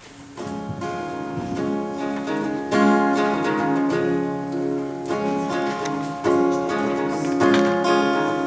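Acoustic guitar playing an introduction, chords struck about once a second and left to ring; it starts about half a second in.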